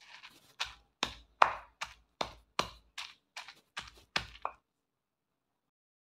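Stone pestle pounding and crushing shallots, garlic, chili and other spices into a coarse paste in a volcanic-stone mortar (cobek and ulekan). About ten strikes come at two to three a second after a little scraping, then stop about four and a half seconds in.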